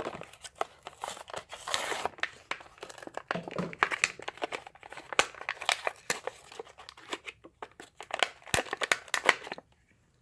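Plastic blister and cardboard card of a Hot Wheels package crinkling and tearing as it is opened by hand, a dense run of crackles that stops near the end.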